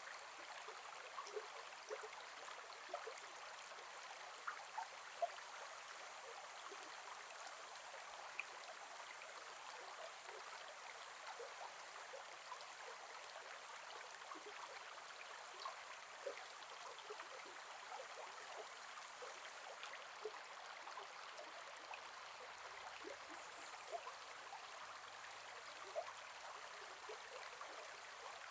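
Gentle forest river flowing: a steady soft rush of water with small plinks and gurgles, and a few brief louder splashes.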